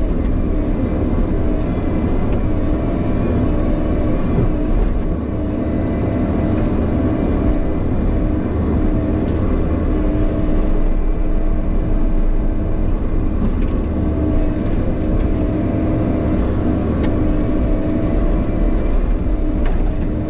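Bobcat E50 compact excavator's diesel engine running steadily under load while digging, with a few faint knocks of the bucket against rock.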